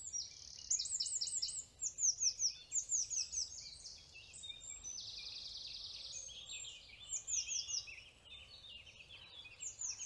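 Songbirds singing in woodland: repeated series of quick, high, falling chirps, with a fast buzzy trill about five seconds in.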